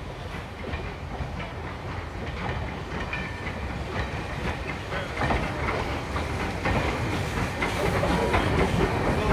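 Steam-hauled train drawing near and starting to pass close by, growing steadily louder, with wheels clicking over the rail joints.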